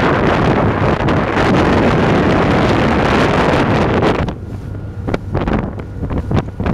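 Strong wind buffeting the microphone on a small motorboat in a choppy sea, heavy for about four seconds and then easing into gusts. The boat's motor hums steadily underneath.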